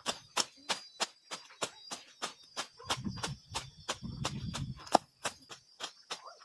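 Rapid, even ticking, about three clicks a second, over a steady high insect drone.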